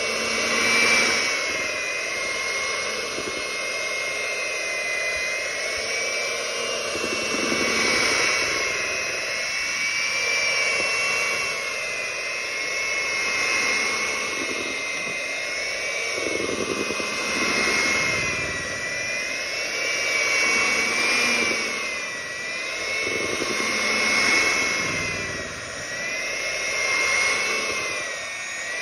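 Electric hand mixer running, its twin beaters whipping cake batter: a steady high motor whine that wavers up and down in pitch, swelling and easing in loudness every few seconds.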